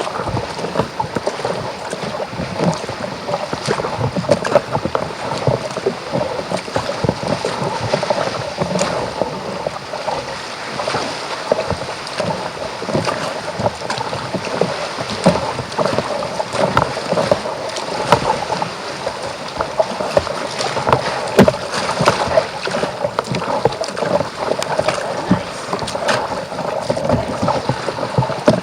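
Sea water splashing and slapping around a paddled kayak, with frequent short irregular splashes and knocks over a continuous wash of water.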